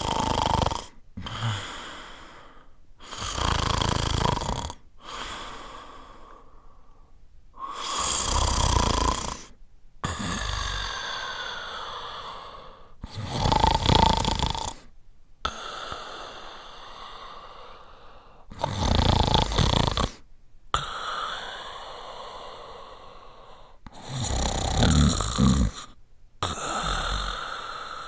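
A person snoring: six loud snores about five seconds apart, each with a deep low rumble, and quieter breaths between them that carry a thin whistle.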